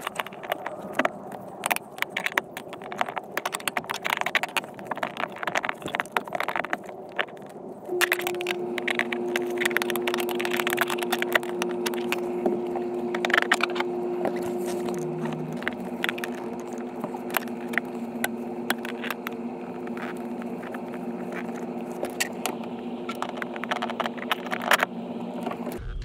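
Scattered metal clinks and scrapes of tools and bolts being worked at a clutch pedal bracket and master cylinder. About eight seconds in, a steady low hum sets in beneath them.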